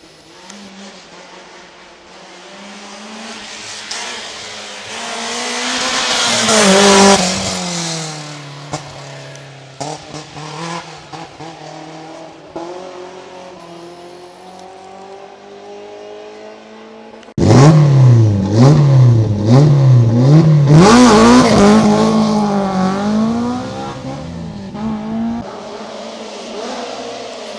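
Rally cars going by. The first approaches and passes about seven seconds in, its engine note dropping as it moves away. From about seventeen seconds a second, louder car starts suddenly, its revs rising and falling sharply several times as it shifts, then it fades away.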